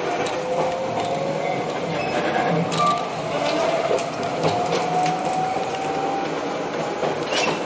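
Resistance-controlled electric train, a Jomo Electric Railway 700 series rebuilt from Keio 3000 series cars, accelerating, heard from inside the car. The traction motor whine rises slowly and steadily in pitch over wheel-on-rail running noise, with a few sharp clacks.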